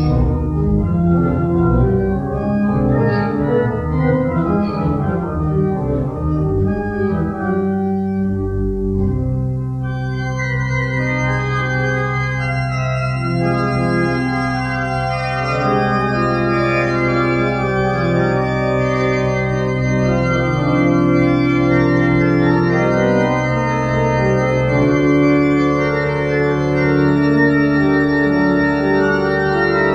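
Organ playing a hymn tune in slow, sustained chords. A held low bass note enters about a third of the way through.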